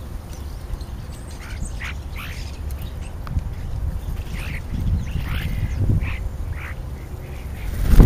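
European starlings giving short calls, about a dozen scattered notes, over a steady low rumble. Near the end there is a loud flurry as starlings land right beside the microphone.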